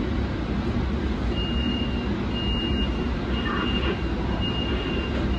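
A light-rail car's electronic warning beeps, most likely its door-closing chime: one clear high tone repeating about once a second, starting a second or so in. Under them runs the steady hum of the stopped car's equipment.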